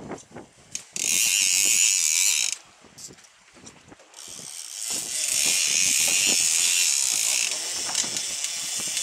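Fishing reel's drag buzzing as a hooked small shark pulls line off against the bent boat rod: a short run about a second in and a longer, steadier run from about four seconds in.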